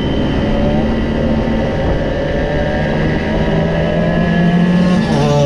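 Several single-cylinder two-stroke Simson moped engines running at speed together, more than one engine note at a time. Near the end one note comes up louder and clearer.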